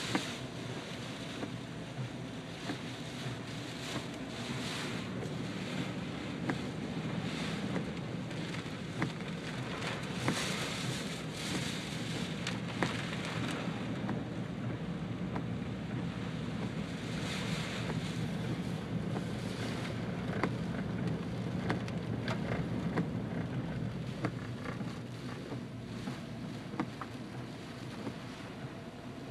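Rain pattering on a car's windshield and body, heard from inside the cabin as scattered sharp ticks over the steady hum of the car driving on a wet road.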